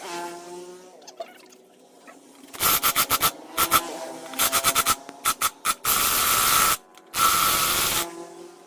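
Workshop tool noise in loud hissing bursts. First comes a stuttering run of short blasts, then two longer blasts of about a second each, with a steady tone underneath.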